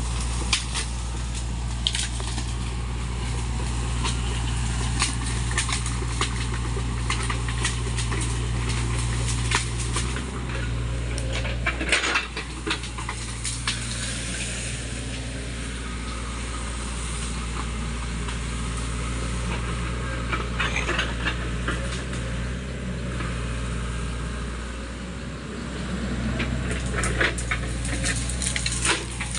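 SANY mini excavator's diesel engine running steadily while the machine works through bamboo and brush, with frequent sharp cracks, snaps and knocks of stems breaking under it. The engine note dips briefly about twelve seconds in, amid a loud cluster of cracking.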